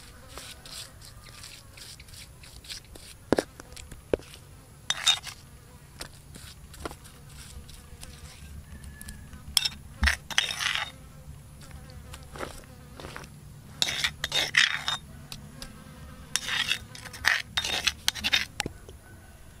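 Metal spoon clicking and scraping as wet chili paste is spooned and spread over raw chicken wings on a woven bamboo tray, in several short bursts of scraping between scattered clicks, over a faint steady buzz.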